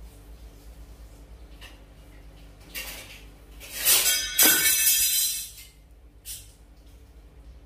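Steel kitchen utensils clattering and scraping for about two seconds, ringing metallically, over a low steady hum.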